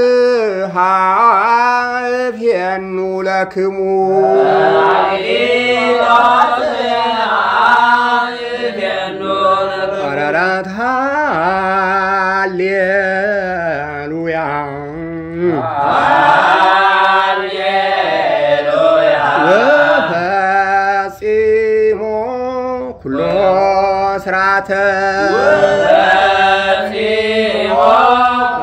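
Ethiopian Orthodox liturgical chant (zema) in Ge'ez: a voice sings the post-Pentecost mezmur in long melismatic lines, holding and sliding through drawn-out syllables with a wavering, ornamented pitch and only brief breaks between phrases.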